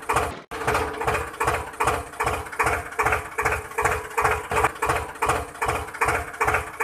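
Tractor engine sound effect chugging in a steady putt-putt of about three beats a second, with a brief drop-out about half a second in.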